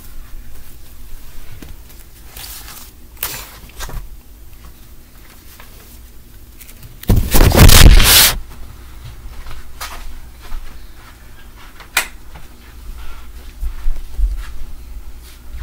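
Scattered light knocks and clicks, with a loud scraping rustle lasting about a second around seven seconds in.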